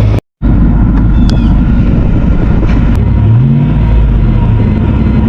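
Car engine running under load as the car pushes through deep snow, with a loud low rumble; the revs rise about three seconds in. The sound cuts out completely for a moment just after the start.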